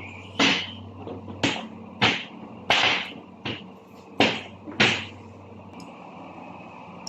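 Sharp metal knocks and clanks of tools on gearbox parts as a Toyota Hilux manual gearbox is taken apart, about seven in five seconds, then only a steady low hum.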